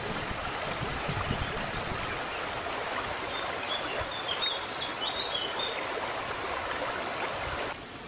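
Shallow river flowing over stones, a steady rush of water. A bird calls a quick run of high chirping notes midway. The rushing cuts off abruptly near the end.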